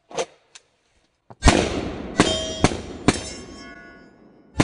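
Pistol shots at a target range: four quick shots starting about a second and a half in and a fifth near the end, with steel plate targets ringing after the hits and each report echoing off the woods.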